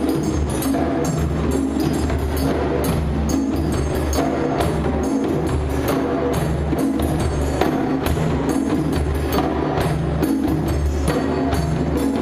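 Music with a steady beat: sustained bass notes under sharp, regular percussive hits, at an even loud level.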